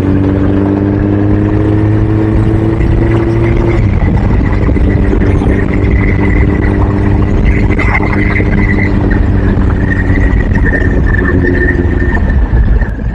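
Engine of a moving vehicle running steadily under dense road and wind noise. Its pitch rises slightly over the first four seconds and then holds. A thin, high steady whine sounds throughout.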